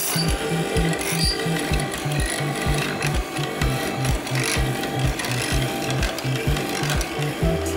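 Hollow-chisel mortiser cutting a mortise into a round wooden chair leg, its square chisel and auger boring through the wood. Background music with a steady low beat runs underneath.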